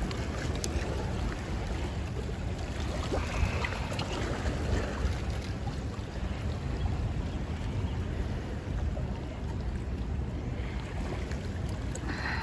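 Steady wind noise on the microphone over the continuous rush of churning spillway water.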